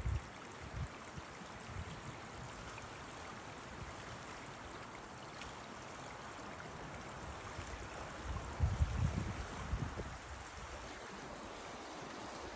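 Steady rushing of a stream of running water, with a low rumble about nine seconds in.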